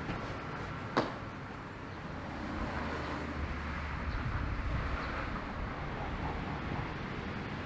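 Outdoor ambience with distant road traffic: a steady hiss and a low rumble that swells in the middle. A single sharp knock about a second in.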